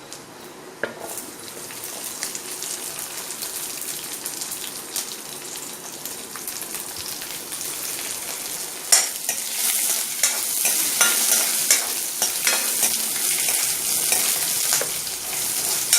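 Hot oil sizzling in a pan as vadagam and a dried red chilli fry for a tempering, then a much louder sizzle from about nine seconds in as chopped shallots go into the oil and are stirred, with sharp ticks of the spoon against the pan.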